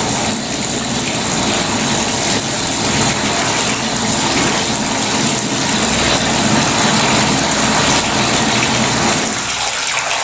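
Tap water running steadily into an old porcelain-enamel bathtub.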